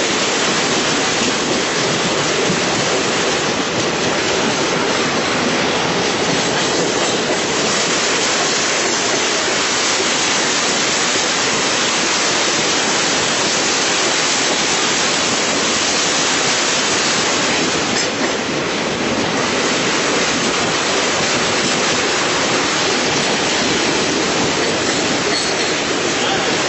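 Passenger train running steadily across a rail bridge: a continuous rumble and rush of wheels on the rails, heard from an open door at the side of the coach.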